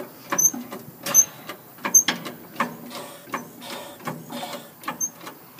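Irregular mechanical clicks and knocks, about two a second, with faint short high squeaks, as the cab of a Mack MH633 cab-over truck is being tilted up on its lift.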